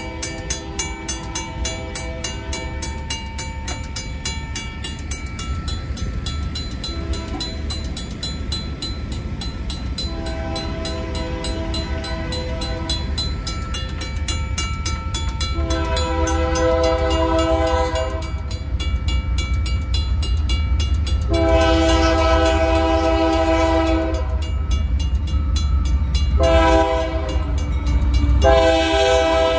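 Safetran mechanical crossing bell ringing rapidly and without a break, while an approaching Union Pacific freight locomotive sounds its horn in six blasts. The last two blasts come close together near the end, and the low rumble of the train grows louder as it nears.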